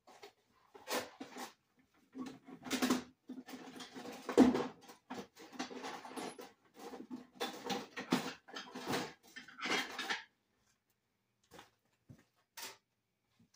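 Irregular knocking and clattering of objects being handled and moved about under the workbench, in a dense run for about nine seconds, then two single knocks near the end.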